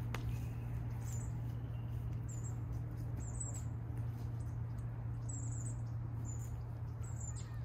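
Small birds giving short, very high chirps about once a second, over a steady low hum. There is a single sharp knock right at the start.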